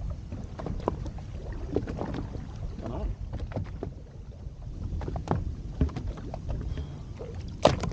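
Low rumble of wind on the microphone aboard a small boat, with scattered small knocks and clicks and one sharp knock just before the end.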